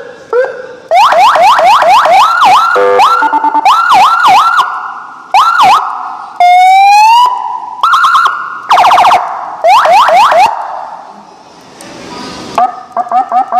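Sirine S6 Double Sound 200-watt electronic siren sounding loud and cycling through its tone patterns. It switches every second or so between quick up-and-down yelps, a choppy stepped tone, held steady tones and a single rising whoop, with short gaps between patterns. Near the end it goes into a fast warble.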